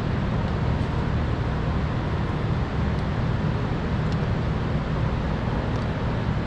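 Steady low rumbling background noise, unchanged throughout, with a few faint small clicks over it.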